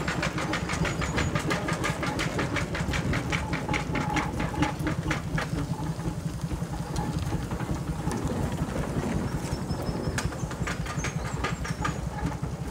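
Steam traction engine running, its beat and mechanical clatter going in a quick, even rhythm.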